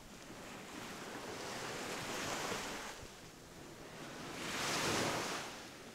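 Small sea waves breaking and washing up on a sandy shore, surging twice, the second surge louder about four to five seconds in.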